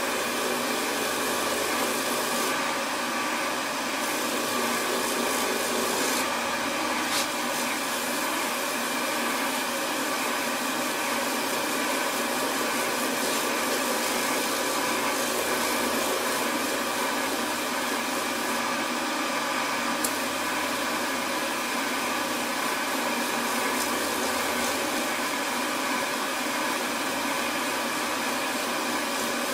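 Record Power DML305 variable-speed woodturning lathe running steadily at about 1200 RPM, a constant motor whirr, while a friction-polish cloth is held against the spinning bowl. A couple of faint clicks occur, once early and once about two-thirds through.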